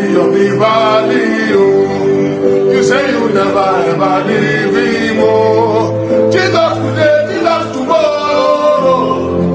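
Gospel worship song with a male lead voice singing over sustained keyboard chords and bass, with a choir.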